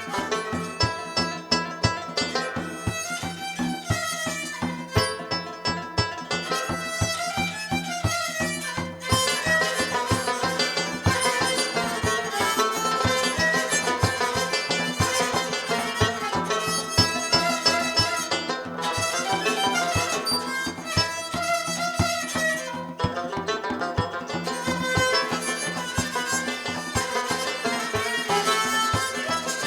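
Traditional Central Asian instrumental music played live: fast, dense plucked-string strokes under a sustained bowed-string melody.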